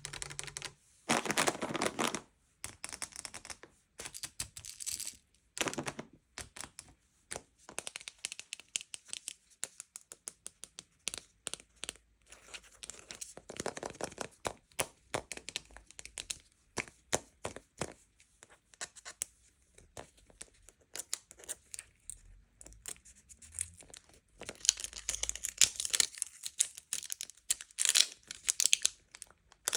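Packaging being torn open and crinkled by hand, close to the microphone: a run of irregular crackles and rips, with a loud tear in the first two seconds and dense crinkling near the end.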